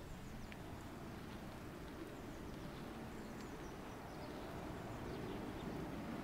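Small birds chirping in short, high, falling notes over a steady low rumble of bicycle tyres rolling on a tarmac path.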